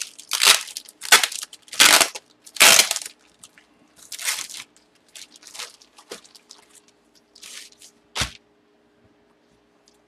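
Plastic bag crinkling and rustling in bursts as it is handled and pulled open: four loud rustles in the first three seconds, softer ones after, and a single sharp knock about eight seconds in.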